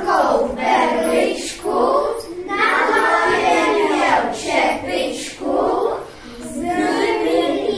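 A group of children singing together, with short breaks between phrases.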